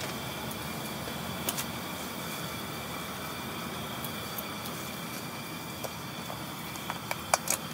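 Steady background noise with a faint hum, and near the end a few sharp clicks as an electric heating mat's plug is pushed into a power strip.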